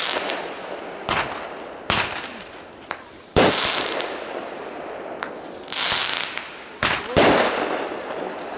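Aerial fireworks bursting overhead: a run of about six sharp bangs a second or two apart, several of them trailed by a crackling hiss as the bursts spread.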